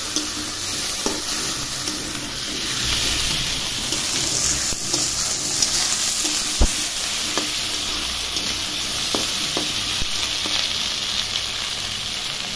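Potato chunks and tomato pieces sizzling in hot oil in a karahi while being stirred with a spatula, which knocks against the pan a few times.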